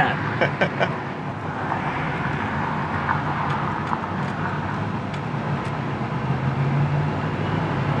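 Pontiac 301 V8 with a two-barrel carburetor pulling the 1979 Firebird Esprit away from a stop and accelerating: a steady engine drone, with a few light clicks about half a second in.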